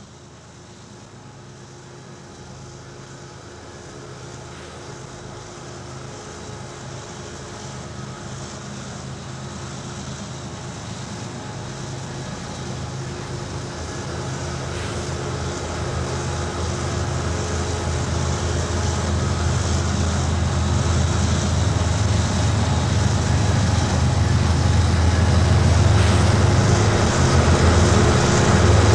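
Two GE ES44DC diesel locomotives leading a freight train, their V12 engines running with a low steady hum and the train's rumble growing steadily louder as it approaches.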